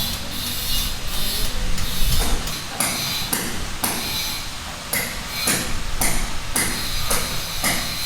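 A run of sharp strikes, about two a second, like something being hammered.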